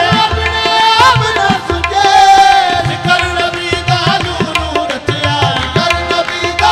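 Qawwali devotional music: two harmoniums and tabla playing a steady rhythm, with a singer's voice over them.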